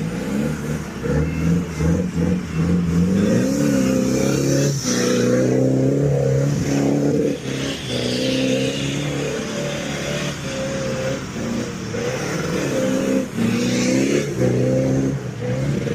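Jeep Liberty KJ engine running under varying throttle. Its pitch climbs about three seconds in, then rises and falls repeatedly, with a few brief breaks in the sound.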